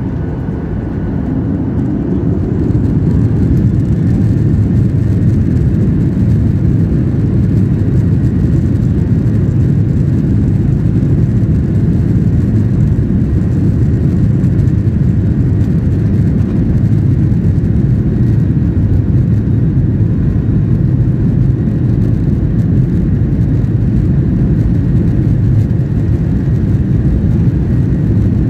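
Cabin noise of a Boeing 737-800's CFM56-7B jet engines heard from a seat over the wing, a deep steady rumble. It swells over the first two or three seconds as thrust comes up for the takeoff roll, then holds level.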